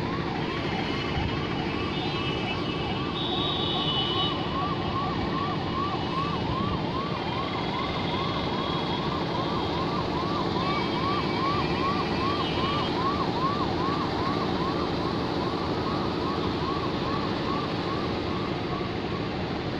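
Ambulance siren sounding a fast repeating yelp, about two rising-and-falling sweeps a second, over the steady drone of jammed traffic.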